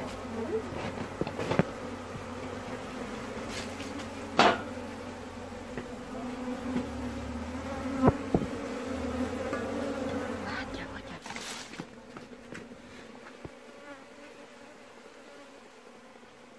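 A cluster of honeybees humming in a steady drone close up, with a few sharp knocks, the loudest about four and eight seconds in. The hum fades after about eleven seconds.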